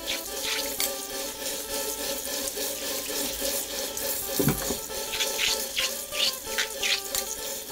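Tap water running into a stainless steel sink and splashing over green papaya halves as they are rubbed and rinsed by hand.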